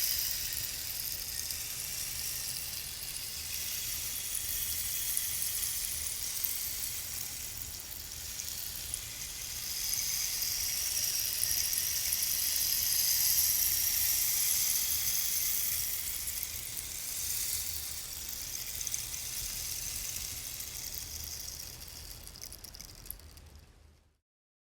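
Handmade eucalyptus-wood rainstick tipped over, its fill trickling down inside as a continuous rushing patter that swells in the middle and dies away near the end.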